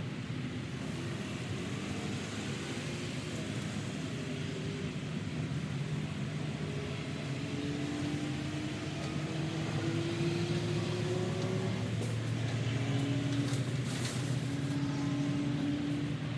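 Motor vehicle engine running nearby, a steady low hum whose pitch slowly rises and which grows somewhat louder about ten seconds in.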